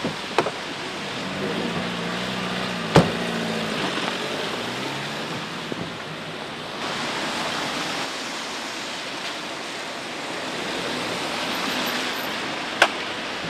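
Steady hiss of rain on a wet street. A car engine hums, rising and falling, about two to four seconds in. There are two sharp knocks, one about three seconds in and one near the end.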